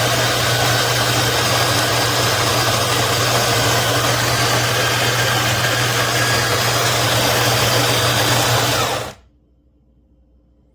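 ZWILLING Enfinigy electric conical burr coffee grinder running steadily, a loud motor hum with a grinding rush over it. It cuts off suddenly about nine seconds in.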